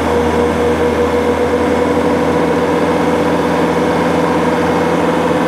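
Bobcat skid steer's Doosan D24 common-rail diesel engine running steadily at high throttle, loaded by its engaged auxiliary hydraulics, with a steady high tone over the engine note.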